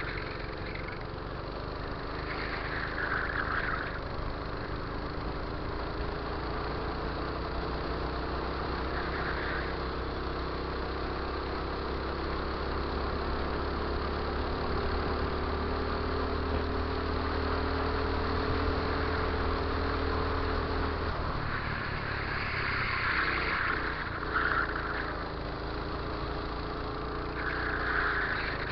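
Go-kart engine running under load, heard onboard: its pitch climbs slowly for over ten seconds, then drops sharply about twenty-one seconds in and climbs again. A rushing noise swells and fades several times over it.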